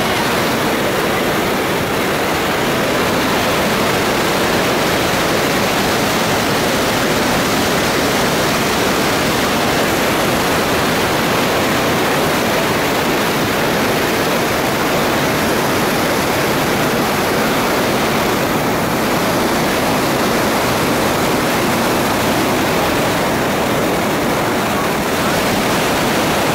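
Iguaçu Falls: a loud, steady rush of a huge waterfall and its white-water rapids, a continuous wash of falling water without a break.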